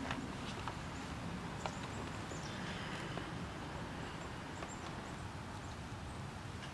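Outdoor background noise: a steady low rumble and hiss with a few faint, scattered ticks.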